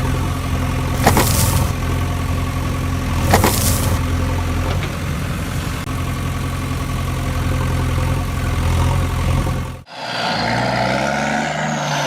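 A heavy construction-vehicle engine running steadily, with two short hissing bursts in the first few seconds. The engine cuts off abruptly near the end and a different, lighter sound takes over.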